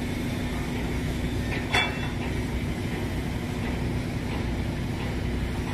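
Boat engine running steadily, a low drone with a constant hum. A single short clink rings out about one and a half seconds in.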